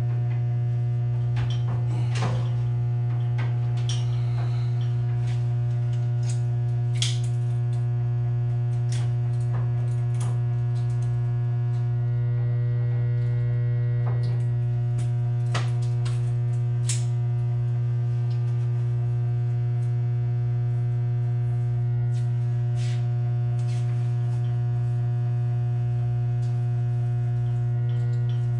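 Steady low electrical hum from two large 150 kVA transformers. Scattered light clicks and rustles come from wires being handled in an open breaker panel.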